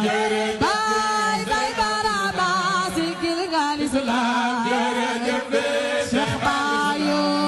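A chanted devotional song: a single voice sings wavering, ornamented notes over a steady low drone.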